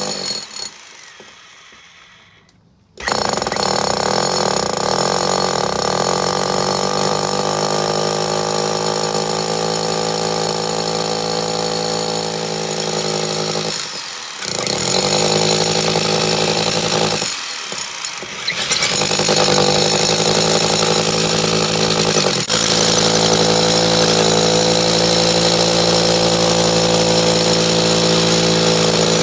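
DeWalt hammer drill boring through a brick wall, running steadily and loudly. It starts about three seconds in and stops briefly twice near the middle before restarting.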